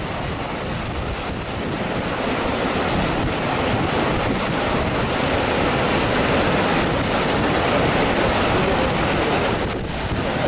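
Steady loud rush of a fast mountain stream flowing across the road at a water crossing, with wind buffeting the microphone.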